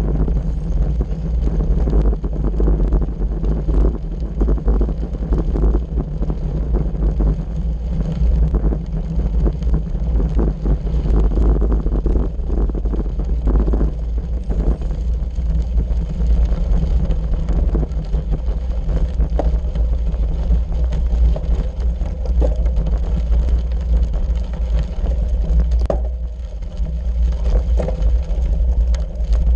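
Bicycle rolling over a loose gravel road: continuous crunching and rattling of tyres and bike over the stones, on top of a loud low rumble of wind on the microphone.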